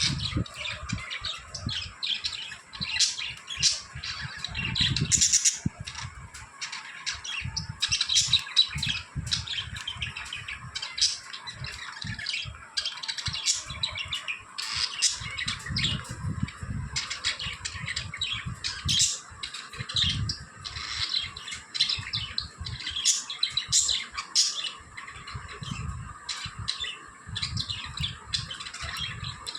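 A flock of pet budgerigars chirping and chattering continuously, many short, quick calls overlapping with no pause.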